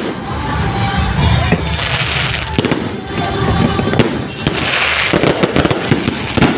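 Aerial fireworks shells bursting overhead: a rapid run of bangs and pops, with dense crackling about two seconds in and again about five seconds in.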